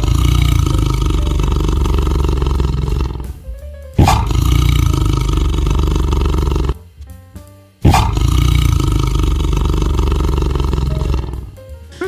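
A large animal roaring three times. Each roar starts suddenly and lasts about three seconds, with short pauses between them.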